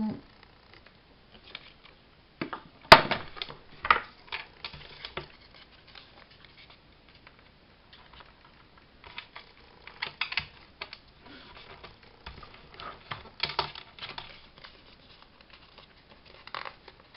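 Paper and thin card being handled and pressed on a craft table: light rustling and tapping in short clusters, with one sharp click about three seconds in.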